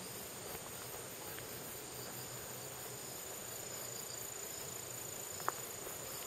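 Insects calling in a steady high-pitched tone, with one sharp click about five and a half seconds in.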